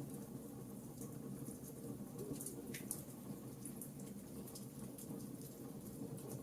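Wood fire crackling in a fireplace: scattered sharp pops and snaps over a low, steady rumble of burning.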